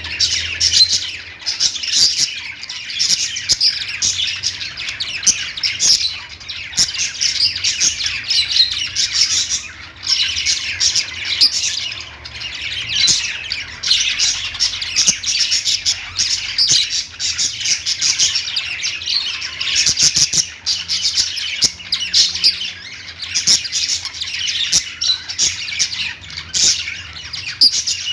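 A group of small pet parrots chirping and squawking continuously, many short, high chirps overlapping in a busy chatter.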